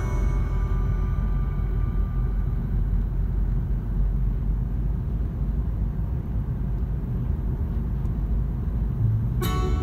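Low, steady rumble of a car driving on the road, heard from inside the moving car. Music comes back in near the end.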